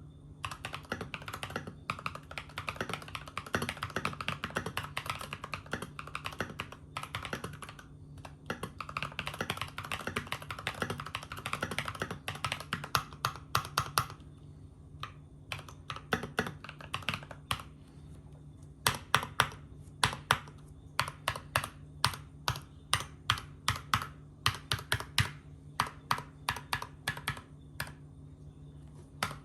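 Typing on a GMMK Pro mechanical keyboard with an aluminum plate, Cobalt switches and matt3o MT3 /bow/ keycaps. For about the first half it is a fast, continuous run of keystrokes; after that come slower, separate key presses, a few a second.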